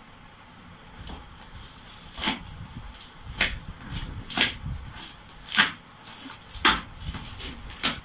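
Plastic seal wrap on a toy helicopter's box crackling and tearing as it is picked at and peeled off: about seven sharp crackles, roughly one a second.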